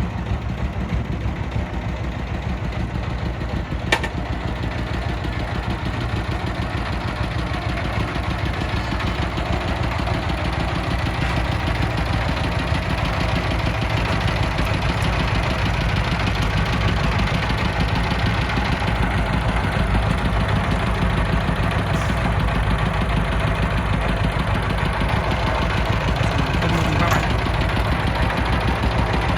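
Diesel engine running steadily with a low, even beat, with a sharp click about four seconds in.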